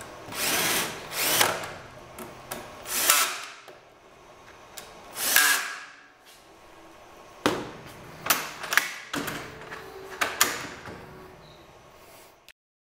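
Cordless drill driving screws into a flip-up shelf's metal bracket in four short runs, each spinning up and stopping. After that come several sharp clicks and knocks.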